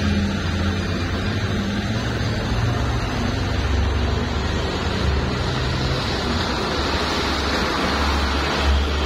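Heavy tanker truck's engine rumbling as it approaches along a dirt road, with a steady low drone and tyre and engine noise growing louder over the last few seconds.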